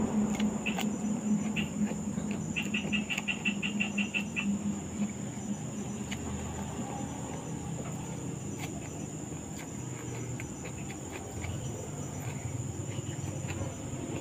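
Close-up eating sounds of boiled okra and rice eaten by hand: chewing and mouth clicks. Crickets trill steadily in the background, with a short run of rapid clicks a few seconds in.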